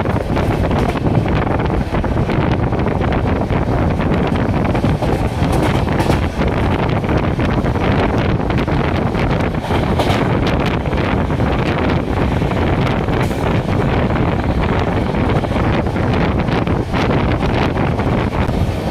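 Passenger train running, heard as a loud, steady rush of running noise with wind buffeting the microphone.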